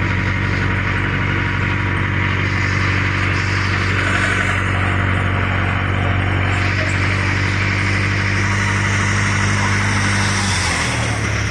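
Tourist road train's engine running steadily while under way, with road noise. Near the end the engine note steps up.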